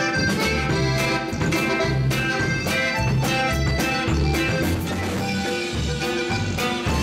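Live band playing: an accordion carries the melody over electric bass, guitar and a drum kit keeping a steady beat.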